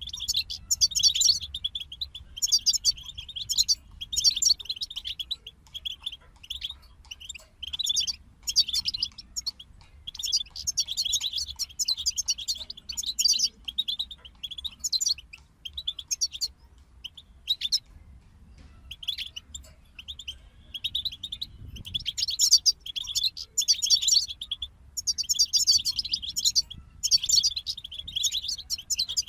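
European goldfinches singing: fast, tinkling twittered phrases one after another, broken by brief pauses and a short lull a little past the middle.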